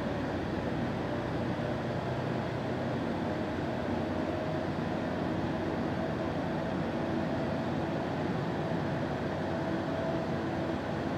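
Inside a Solaris Urbino 18 articulated city bus on the move: steady drivetrain and road noise with a faint whine.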